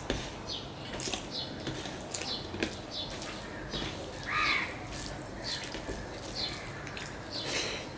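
Fingers mixing and squeezing rice with curry on a steel plate: soft wet squelches and small clicks against the metal. Small birds chirp repeatedly in the background.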